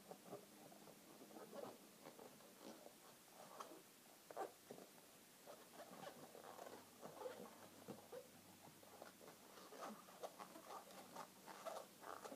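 Latex twisting balloons (long 260 modelling balloons and a round 5-inch balloon) squeaking and rubbing against each other and against the hands as they are twisted and worked together. The sounds are faint, short and irregular.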